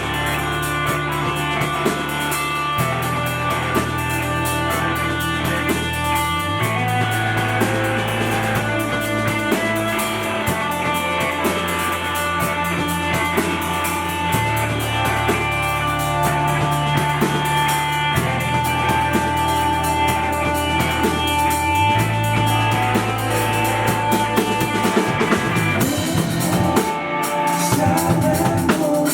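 A band playing instrumental rock with drum kit, guitar and long held bass notes that change every few seconds under a steady wash of cymbals. Near the end the bass drops away and the drums come to the fore.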